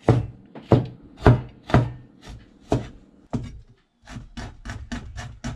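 Cleaver chopping tomatoes on a plastic cutting board. Single sharp knocks come about every half second, then after a short break a quicker run of chops, about six a second.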